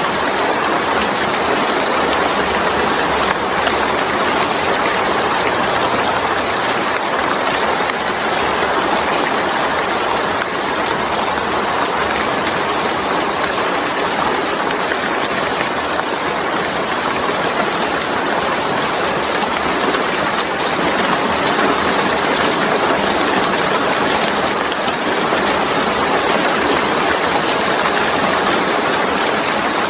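Steady heavy rain, a continuous even hiss of falling water with no breaks.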